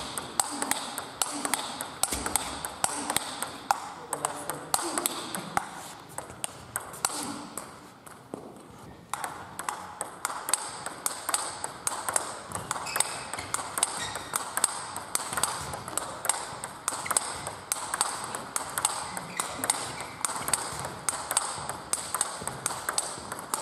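Table tennis rally: the ball clicking quickly back and forth between bats and table in a fast, steady rhythm, with rallies at a neighbouring table mixed in. A brief lull comes about eight seconds in before the rally picks up again.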